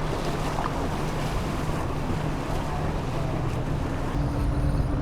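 Wind buffeting the microphone and water sloshing around a boat, over a steady low drone; a second steady tone joins about four seconds in.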